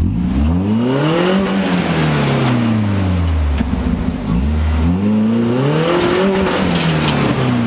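Toyota off-road truck's engine revving hard twice, each rev climbing for about a second and then dropping away, as the truck drives at a rocky waterfall climb, with a rushing noise alongside.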